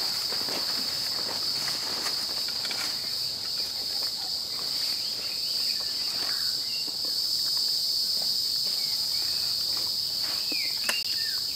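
A steady high-pitched insect chorus, with scattered rustles and crackles and a few short chirps in the second half.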